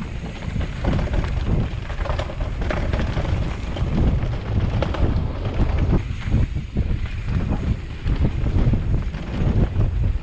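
Wind buffeting a camera microphone carried on a moving mountain bike, a continuous low rumble, with scattered knocks and rattles from the bike over rough trail.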